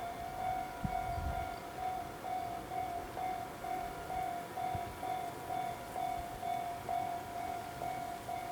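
Level-crossing warning alarm ringing continuously, its clanging tone repeating about twice a second.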